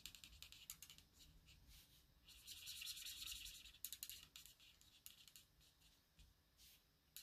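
Faint scratchy rubbing of an alcohol marker's tip colouring on cardstock, in short strokes, loudest from about two and a half to four seconds in.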